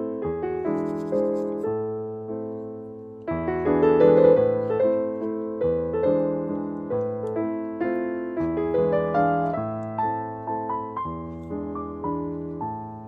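Background piano music: a steady run of notes struck and left to fade, quieter for a moment and then coming back louder about three seconds in.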